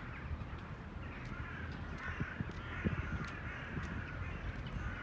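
Birds calling a few times over a low steady rumble.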